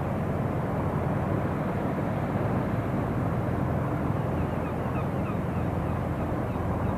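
Engine of a small fishing boat running steadily as it motors past, with the rush of its bow wash.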